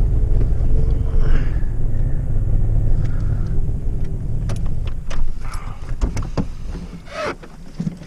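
2008 Ford Ranger engine running as the pickup is driven slowly across a lot, heard from inside the cab; the low rumble dies away about six to seven seconds in. Several sharp clicks and knocks from inside the cab come in the second half.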